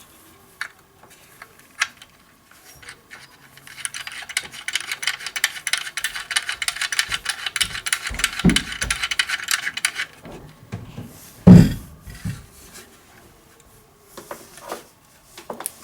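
Coaxial cable connector being screwed onto a radio amplifier: a fast run of fine rasping clicks lasting about six seconds, with a few knocks, then a single thump a little past the middle.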